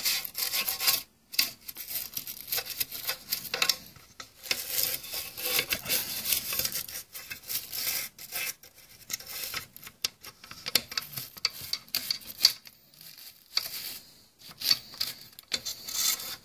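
Irregular scrubbing strokes inside a MAK-90 rifle's stamped steel receiver, working solvent into old buildup, with brief pauses between bouts.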